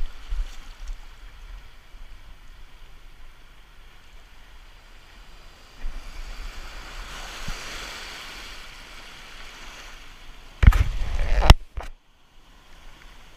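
Surf washing over a rocky tidal shelf, swelling for a few seconds in the middle. Near the end, a loud burst of rubbing noise about a second long from a hand on the camera, followed by a short click.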